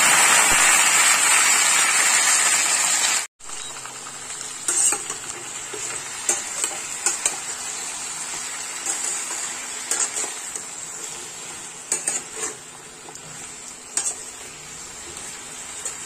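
Cubed pumpkin and potato frying in hot oil in a stainless steel pan: a loud sizzle that cuts off suddenly about three seconds in. After that comes a quieter steady sizzle as a metal spatula stirs the vegetables, with scattered scrapes and clinks against the pan.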